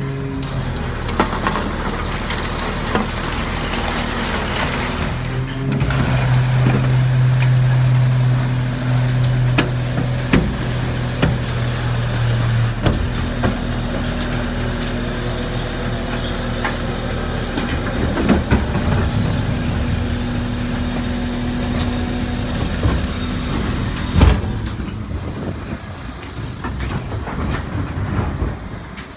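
Hino FM 500 collection truck with a Bucher Urbin body running with a steady hum, louder for several seconds early on, while empty cans and bottles clatter into its hopper with many sharp clinks and a loud knock about 24 seconds in.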